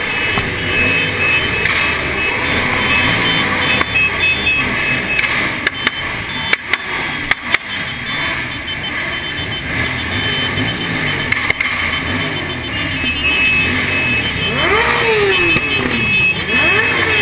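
Many sport-motorcycle engines running together in a packed group, riders blipping their throttles so that overlapping revs rise and fall; two clear revs stand out near the end. A few sharp knocks sound around the middle.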